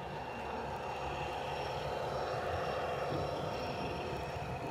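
Sound-equipped 0-scale model diesel locomotive passing close with its coaches: a steady engine drone and wheels rolling on the track, growing louder towards the middle and easing off near the end.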